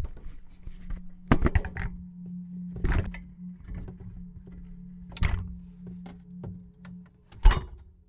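A steady low hum with several sharp knocks and thuds over it: a quick cluster early, then single knocks about every two seconds, the loudest near the end.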